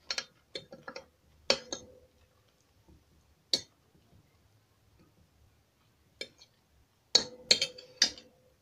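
A metal fork clinking and scraping against a dinner plate while eating spaghetti, with clicks from chewing: scattered sharp clinks, some followed by a short ringing note, and a quicker cluster of clinks near the end.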